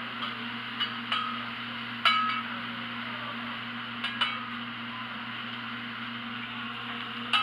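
Metal spatulas clinking on a teppanyaki griddle, about five short ringing clinks with the loudest about two seconds in, over a steady hiss and hum.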